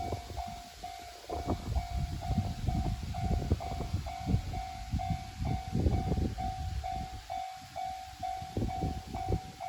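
Japanese level-crossing alarm ringing its 'kan-kan' tone about twice a second while a KiHa 200 series diesel railcar passes. The wheels clatter over the rail joints with heavy, irregular knocks and rumble, loudest in the middle.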